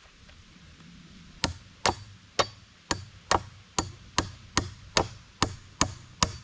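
Steel Estwing camp hatchet used as a hammer, its poll striking a steel nail into a wooden chopping block: about a dozen sharp, ringing metallic strikes at a steady pace of roughly two a second, starting about a second and a half in.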